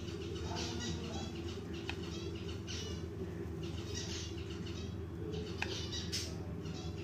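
Small birds chirping again and again over a steady low hum, with a couple of sharp clicks of a spoon against a ceramic bowl around six seconds in.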